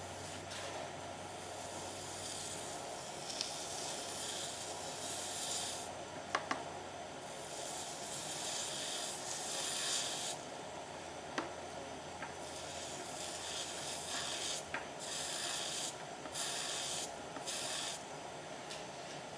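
A DIY electropolishing applicator is rubbed over a stainless steel weld seam, making a scrubbing hiss in strokes that start and stop. A few sharp clicks come through, and a low hum runs under the first half before fading out.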